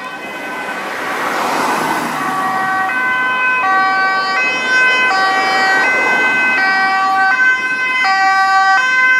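Dutch ambulance two-tone siren, switching between a high and a low tone about every 0.7 seconds and growing louder as the ambulance approaches.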